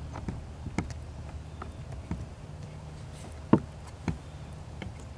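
Scattered small clicks and knocks of a dot sight being handled and pressed onto a pistol's mounting rail, the sharpest about three and a half seconds in with another just after, over a low steady hum.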